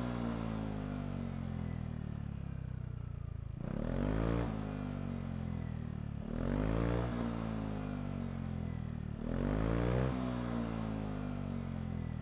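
Yamaha XMAX scooter's single-cylinder engine breathing through a Yoshimura R-77J full-system exhaust, blipped three times about three seconds apart, the revs climbing quickly and then falling back toward idle after each blip.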